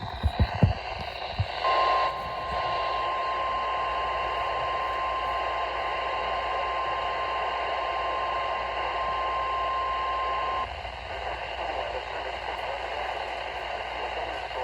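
Weather radio receiver sounding the NOAA Weather Radio 1050 Hz warning alarm tone: one steady pitch held for about nine seconds over radio static hiss, starting about two seconds in after a few clicks and thumps. The tone signals that a warning broadcast is about to follow.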